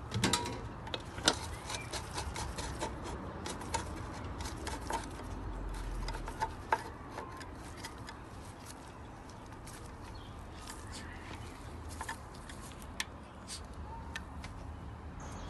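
Irregular small clicks and rubbing of hand work as the plastic air filter cover of a Briggs & Stratton lawnmower engine is fitted and its screw is tightened, busiest in the first couple of seconds.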